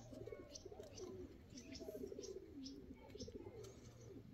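Faint, repeated cooing of pigeons, soft wavering calls one after another, with scattered short high chirps.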